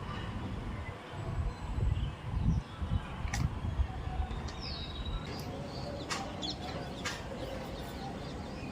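A bird gives a few short chirps, one of them a quick falling note, over a low rumbling background that is strongest in the first half. Three sharp clicks come about three, six and seven seconds in.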